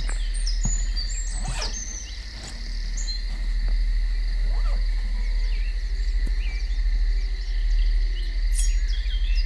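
Woodland ambience: a steady high insect drone with short bird chirps, mostly near the start and the end, over a low steady hum. A few soft clicks of handling come from a cloth bundle being unwrapped.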